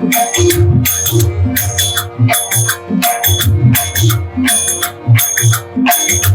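Devotional instrumental music. Hand cymbals clash about twice a second over drum strokes and a held drone.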